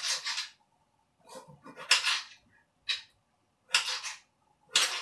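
Kitchen knife scraping and slicing on a cutting board: a short rasp about once a second.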